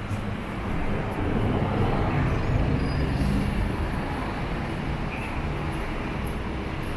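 City bus passing close by, its engine and tyre noise swelling about a second in and easing back after a few seconds into steady road-traffic noise.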